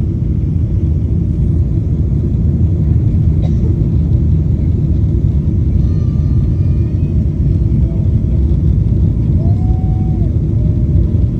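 Steady low rumble inside the cabin of a Boeing 777-300ER on approach: its GE90 engines running and air rushing past the fuselage and the lowered flaps, heard from a window seat over the wing.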